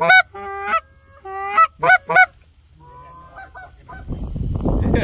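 Goose honking: a series of loud, sharp honks mixed with a few longer, flatter notes, then fainter honks about three seconds in. A rushing noise builds near the end.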